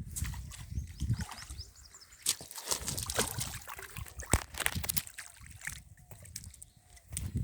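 Water splashing and sloshing, with a quick run of sharp clicks and crackles in the middle, over a low rumble of wind on the microphone at the start and end.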